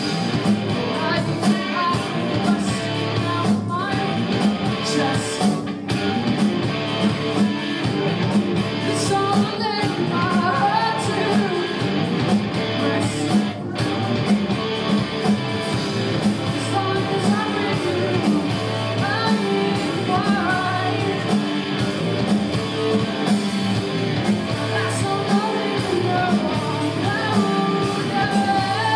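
Live rock band playing a song: guitar and drums, with a voice singing over them.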